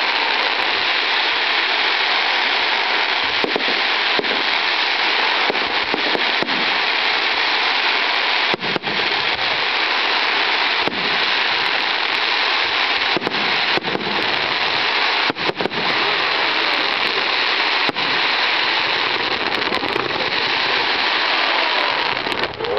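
Fireworks going off: a dense, continuous crackle with many sharp bangs scattered through it.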